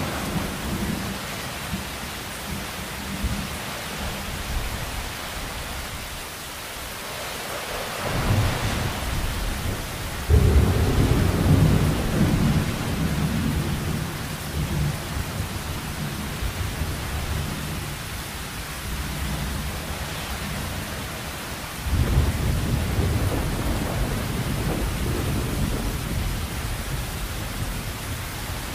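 Heavy rain falling in a steady hiss, with deep rolling thunder. The rumbles swell about eight seconds in, come in sharply about ten seconds in, and again about twenty-two seconds in.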